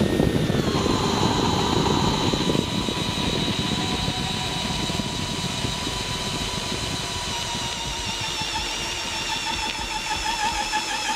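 Makita brushless cordless drill in low gear (speed one, drill mode) driving a large wood auger bit into a tree stump. The motor starts suddenly and runs under heavy load with a steady whine that sinks slightly in pitch as the bit bores deeper, mixed with the noise of the bit chewing through the wood.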